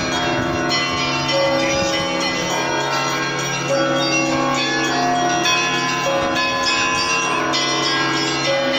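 Russian church bells of several different pitches being rung together, with new strokes every second or so over the continuing ring of the larger, deeper bells.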